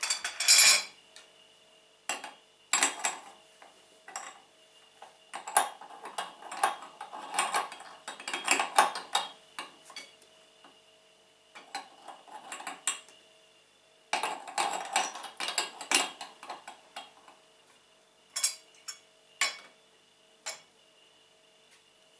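Metal parts of an electric meat grinder clinking and clattering as they are handled and fitted, knocking against each other, the stainless-steel head and a plate. The clatter comes in irregular spells with quiet pauses between them.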